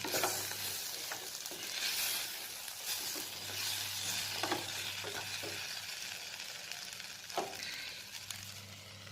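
Chopped ivy gourd sizzling as it dry-fries in oil in an open pan, with no water added. A spatula stirs it now and then, making a few sharp scrapes and clicks against the pan. The sizzle slowly fades near the end.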